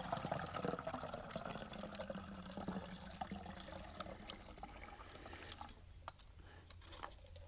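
Tea being poured through a makeshift funnel and small filter into a bottle: a trickle of liquid filling the bottle, which gradually weakens and is faint over the last couple of seconds.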